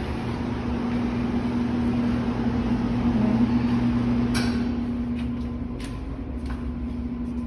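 A steady low hum over a broad background noise, with one sharp click about four seconds in and a few fainter clicks after it.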